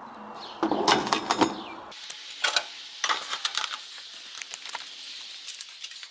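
Metal barbecue grill grates knocking and clinking as they are lifted out and handled: a cluster of knocks about a second in, then scattered clicks and knocks.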